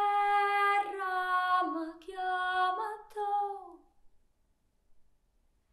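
A lone high voice singing unaccompanied: a slow phrase of long held notes that ends with a downward slide about four seconds in.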